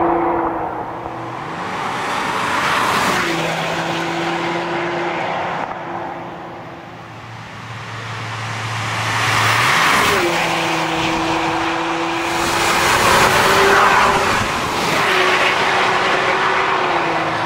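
Porsche Cayenne Diesel running with a TECHART sport exhaust as it drives past, its engine note holding a steady pitch and dropping at gear changes about three and ten seconds in. Tyre and road noise swell and fade as the car approaches.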